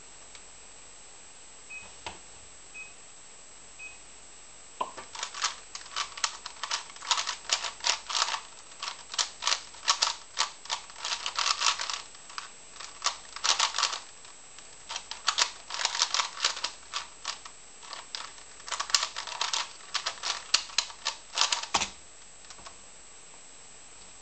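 A 3x3 Rubik's-type cube turned fast during a timed speedsolve: a dense, uneven run of plastic clicks and clacks lasting about seventeen seconds, stopping abruptly when the solve ends. Before it, three short beeps about a second apart from the computer timer's inspection countdown.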